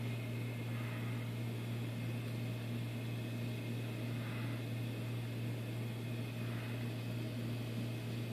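Steady low machine hum with a faint hiss, unchanging throughout, like an appliance or fan running in the room.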